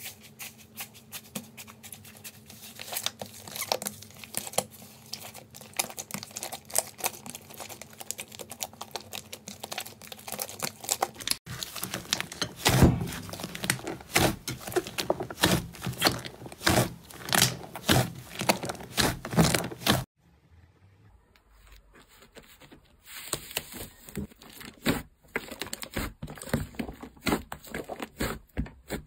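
Hands pressing and squeezing slime, making rapid crackling clicks and pops. The sound changes at two cuts: fingertips pushing into blue slime scattered with orange squares, then louder, denser popping as a large mass of pink slime is squeezed, then sparser clicks as green slime is pressed after a brief lull.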